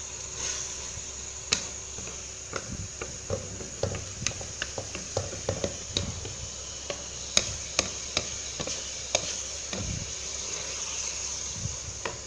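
Diced chicken frying in ghee with garlic paste, a steady sizzle as the chicken gives off its water. Irregular clicks and scrapes of a wooden spatula stirring against the metal pot.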